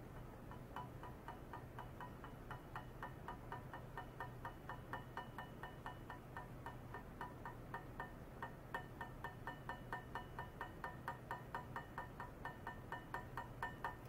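Ultrasonic probe and tank setup driven by a function generator, giving a rapid train of short fixed-pitch tone pulses, about five a second, starting about a second in over a low steady hum.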